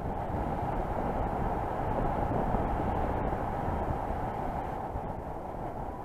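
Steady wind noise from the airflow rushing over the camera microphone of a paraglider in flight, a low, even rumble without clear pitch.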